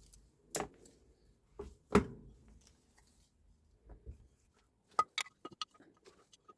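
Metal parts and tools knocking and clinking on a workbench during a Hilti TE905 breaker service: a few heavier knocks, the loudest about two seconds in, then a quick run of small ringing metallic clicks a little after five seconds.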